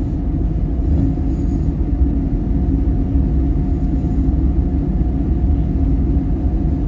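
Steady rumble of a vehicle driving slowly down a street, heard from inside the cabin, with a low, even hum running through it.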